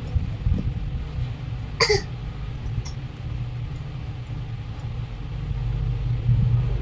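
Steady low background rumble, with one short high squeak falling in pitch about two seconds in.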